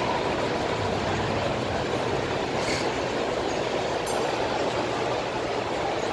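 Dense crowd hubbub in a large indoor hall: hundreds of people talking at once, blending into a steady roar with no single voice standing out.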